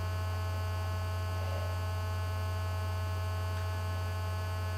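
Steady electrical mains hum with a buzzy stack of overtones from the recording chain, unchanging throughout, with no speech.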